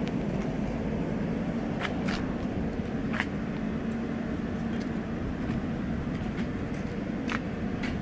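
Steady hum and rumble of an Indian Railways LHB air-conditioned express train alongside the platform, with a handful of short, sharp high clicks or squeaks scattered through it.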